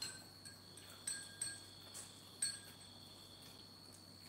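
Quiet room with a faint, steady high-pitched trill of crickets and a few soft light clicks in the first half.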